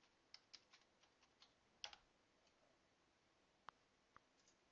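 Faint computer keyboard typing: a quick run of keystrokes over the first two seconds, ending in a slightly heavier key press, then a few single clicks later on.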